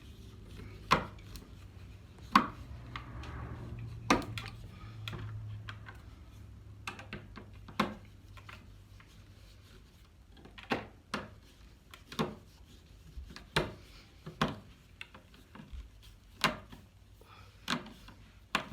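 Irregular clicks and knocks as a light switch and its wires are pushed into a plastic electrical box and screwed down.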